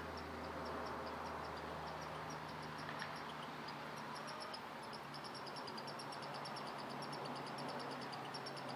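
Rapid high-pitched chirping in short runs of a few notes each, over a steady background hiss. A low hum fades out about three seconds in.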